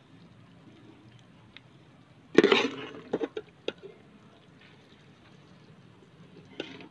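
Metal spoon stirring and scooping chicken karahi gravy in a metal pot: a loud wet scrape about two and a half seconds in, followed by a few sharp clinks of the spoon against the pot, and another short scrape near the end.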